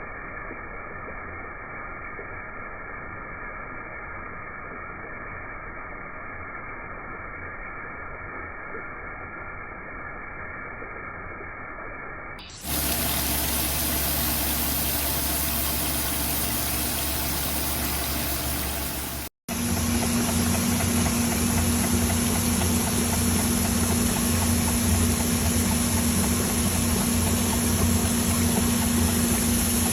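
Crankshaft grinding machine running: a steady machine hum with hiss, in three stretches joined by sudden cuts. The first stretch is quieter and thinner, the second is louder and fuller, and after a brief dropout the last carries a steady low drone and a high whine.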